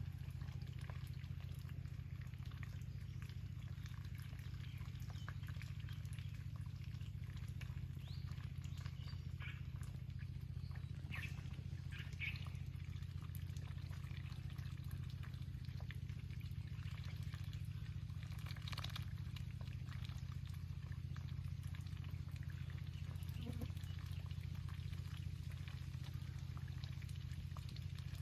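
A steady low hum with a few faint, short animal calls scattered over it: high-pitched ones near the middle and a brief lower one about three-quarters of the way in.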